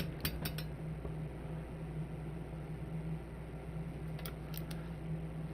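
A steady low hum, with a few light clicks near the start and a few more about four seconds in, as a connector is worked loose inside the open bench power supply.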